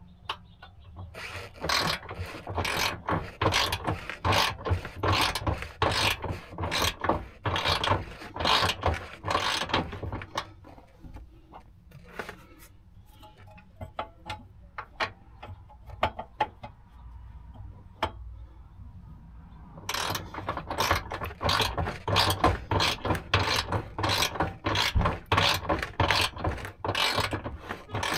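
Replacement spare tire carrier hoist on a Land Rover LR4/LR3 being cranked to wind its cable and raise the spare wheel, making fast repeated ratcheting clicks. The clicking comes in two spells, with a quieter pause in the middle.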